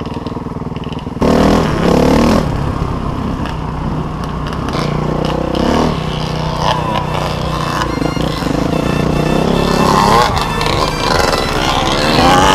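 Dirt bike engine revving up and down as the bike is ridden along a snowy trail, heard from a camera on the rider. It gets suddenly louder about a second in.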